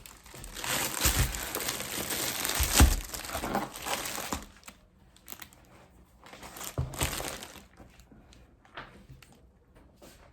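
Plastic shopping bags rustling and crinkling as they are handled, with two thumps about one and three seconds in and another short burst of rustling around seven seconds.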